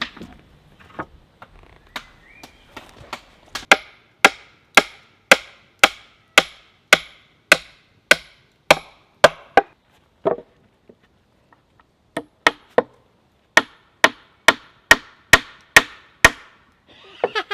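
Hammer driving a nail into wood: a few light taps, then a steady run of hard, ringing blows about two a second, a pause, and a second run of blows.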